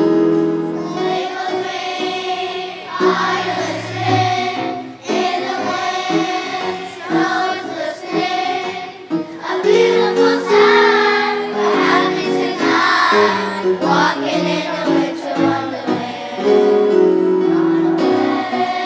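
A children's choir singing a song with piano accompaniment.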